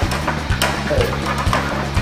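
Background band music with a steady beat, about two beats a second.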